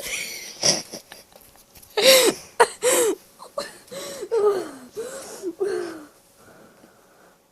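A person's wheezing, breathless laughing fit: a string of squeaky, gasping wheezes that rise and fall in pitch, then dies down about six seconds in.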